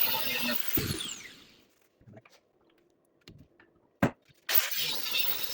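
A power tool working metal stops, and its noise dies away with a falling whine over about a second. After a quiet gap with a few light clicks and one sharp knock, the tool noise starts up again abruptly near the end.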